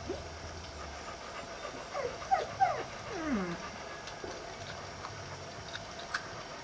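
A dog whimpering: a cluster of short whines that fall in pitch, starting about two seconds in and lasting about a second and a half.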